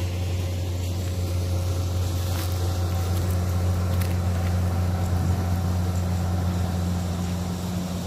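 An engine running steadily at a constant speed, a continuous low hum with no change in pitch.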